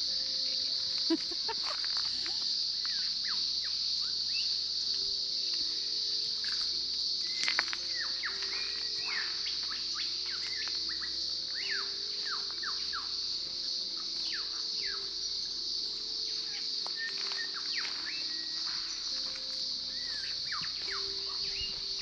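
Forest birds giving many short, quick downward-sweeping chirps over a steady high-pitched insect drone.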